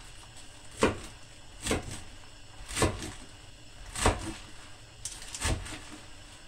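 Knife chopping through collard green leaves onto a wooden cutting board: five separate sharp knocks, roughly a second apart.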